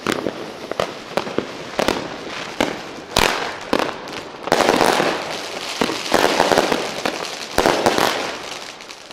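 A 25-shot firework cake (Diamond Golden Rain, fired as five salvos of five): the lit fuse sputters, then shots go off with sharp reports, turning from about halfway in into long dense bursts of noise one after another.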